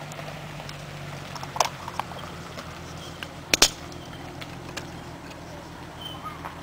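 Hollow red plastic trap hemispheres clicking as they are handled, then snapping together with a sharp double click about three and a half seconds in. A steady low hum runs underneath.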